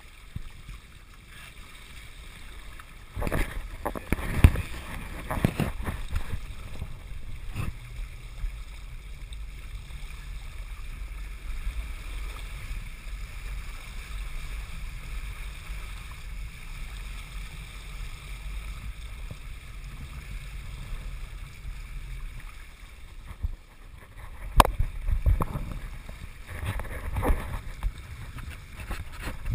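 Choppy seawater rushing and splashing against the hull of a Hobie Wave sailing catamaran under way, with a low rumble of wind on the microphone. Louder splashes come about three to six seconds in and again near the end.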